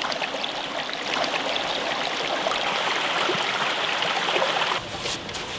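A creek's water running steadily, cutting off abruptly near the end.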